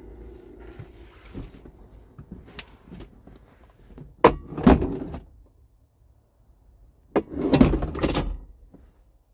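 A hard plastic cab interior panel being handled in a truck cab. There are two bouts, each a sharp knock followed by about a second of scraping and rattling: one about four seconds in, a longer one about seven seconds in.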